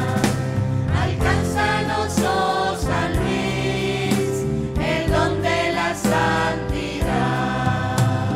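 Small mixed choir of men and women singing a devotional hymn to electronic keyboard accompaniment, phrase after phrase without a break.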